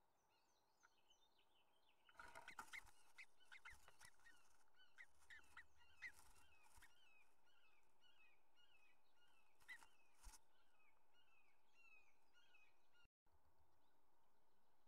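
Bluebird entering a wooden nest box: a scuffle of wings and claws against the wood about two seconds in, then occasional knocks and rustles as it moves in the grass nest, over a steady run of short, falling chirps. The sound cuts out for a moment near the end.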